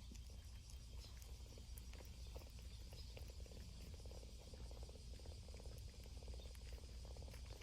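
Cat purring faintly in a long run of short, pulsing phrases.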